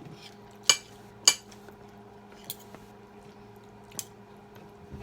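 Metal cutlery clinking against a plate while eating: two sharp clinks about a second in, then a few lighter taps, over a faint steady hum.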